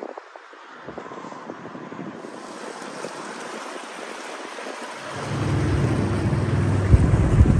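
Small motor cruiser passing close by: its engine's low drone comes in about five seconds in and is loudest near the end, over a rising hiss of water from its wash.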